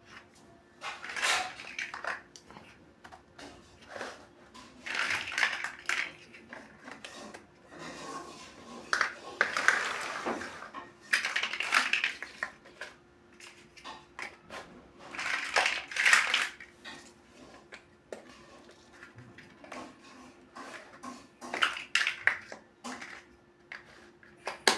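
Plastic building-block pieces clicking and rattling in repeated bursts as they are handled and pressed together, over a faint steady hum.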